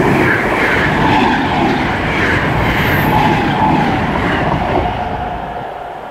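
Two coupled Class 321 electric multiple units running past close by. The loud rumble of the train is strongest over the first few seconds and fades in the last second or so as the train moves away.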